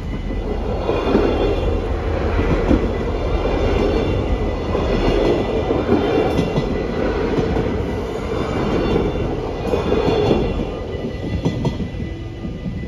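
A Stadler GTW diesel multiple unit passes over the level crossing. Its wheels rumble on the rails in repeated swells as the bogies go over, and the sound eases off near the end as the train clears the crossing.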